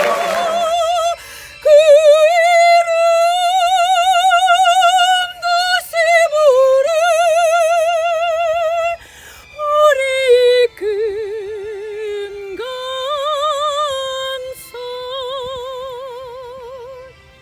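Soprano singing an operatic phrase without accompaniment, holding long notes with a wide vibrato; after a short break about nine seconds in she carries on at a lower pitch.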